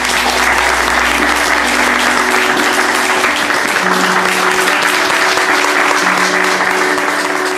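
Audience applauding, with guitar music coming in underneath about a second in; the applause thins near the end as the music carries on.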